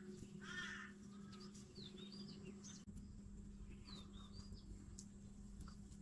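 Faint small birds chirping, a scatter of short calls, over a steady low hum. The sound briefly drops out about three seconds in.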